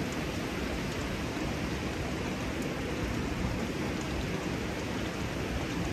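Steady rush of running water from a small hot-spring cascade.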